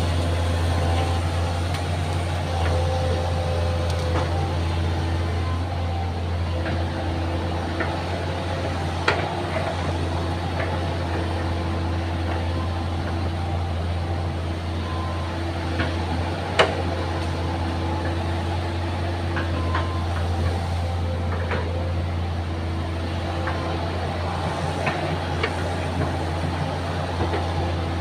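Excavator's diesel engine running steadily, with a few sharp knocks over it; the loudest knock comes about sixteen seconds in.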